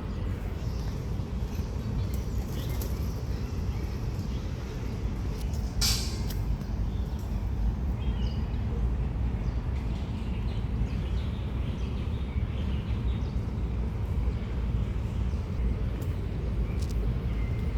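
Outdoor street ambience: a steady low rumble with a short hiss about six seconds in and a few faint chirps.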